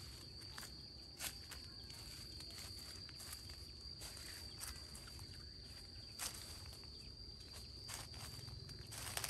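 Steady, high-pitched insect drone, with irregular sharp clicks and footfalls over it.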